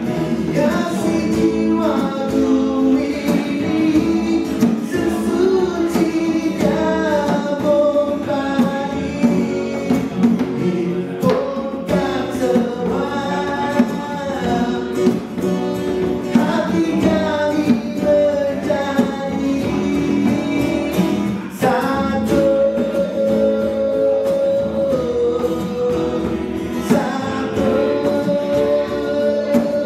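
Live acoustic song: a man singing through a microphone, accompanied by a strummed acoustic guitar and a hand-played djembe.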